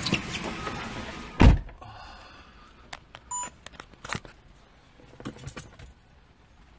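A car door slams shut with one loud thunk about a second and a half in, shutting out the outside noise. Then come quiet clicks and knocks as the phone is handled inside the car, with a short beep about halfway.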